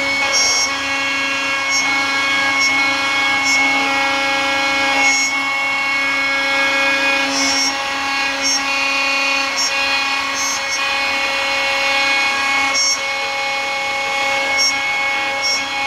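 A CNC router spindle runs steadily with a whine of several pitches while its end mill cuts a pocket in black plastic. Short bursts of cutting noise come every second or two.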